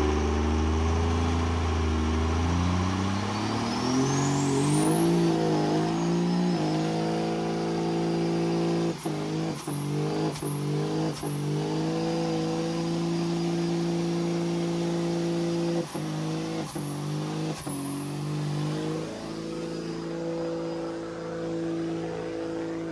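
Second-generation Dodge Ram diesel pickup doing a burnout, its engine revs climbing over the first several seconds while a high whine rises alongside. The revs then hold high, dipping briefly several times in quick succession about nine to eleven seconds in and again about sixteen to eighteen seconds in.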